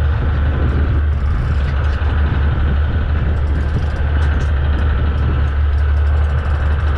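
Boat engine running with a steady low drone, with wind and water noise over it.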